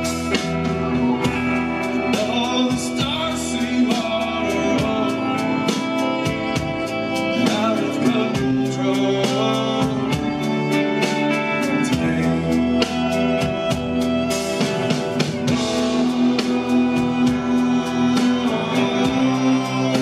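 Live rock band playing a song: electric guitars, bass and a drum kit keeping a steady beat, with male singing.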